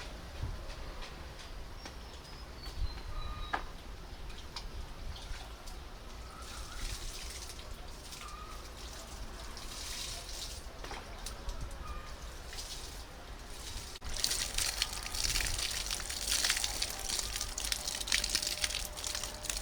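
Water trickling and splashing, with many small drips and splashes, getting louder and busier about two-thirds of the way in.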